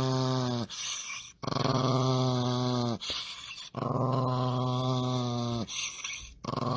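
Small dog growling in long, steady, low growls of about a second and a half to two seconds each, with short pauses between them. One growl ends just after the start, two full growls follow, and another begins near the end.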